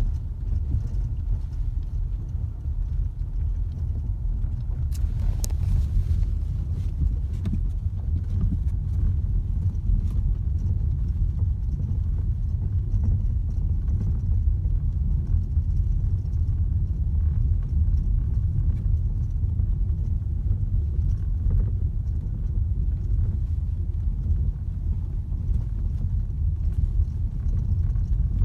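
New Volkswagen Tiguan driving, with a steady low road rumble and irregular short knocks from under the car, which the owner takes for a knock in the suspension.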